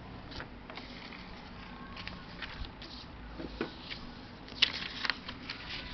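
A sheet of paper rustling and crinkling as hands lay it down and smooth it flat on a table, in short scattered crackles with a sharper cluster about three quarters of the way in.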